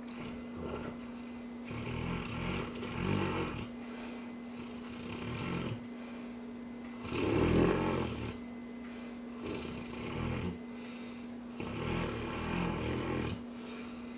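Cane Corso snoring in its sleep: a run of snores every two seconds or so, the loudest about halfway through.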